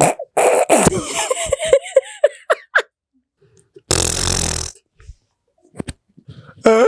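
People making silly vocal sounds with their mouths: a run of wavering, warbling voice noises, a short fart-like blast about four seconds in, and a falling whine near the end.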